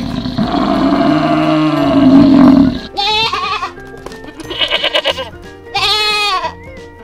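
A water buffalo's long, low bellow for the first three seconds or so, then goats bleating three times, each bleat wavering. Background music runs underneath.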